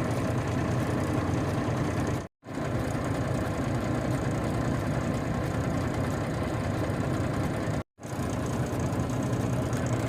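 A heavy vehicle's engine running steadily. The sound cuts out abruptly twice, each time for a moment.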